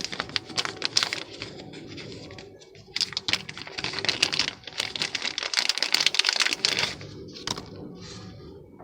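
Clicking, rattling and rustling of a copper crimp ring, a coupling and PEX pipe being handled, busiest in the middle.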